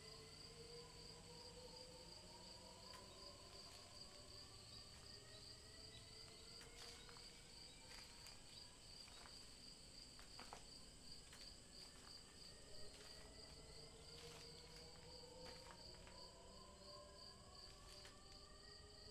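Faint night ambience of crickets chirping in a steady, rapidly pulsing trill, over slow low tones that glide up and down in pitch.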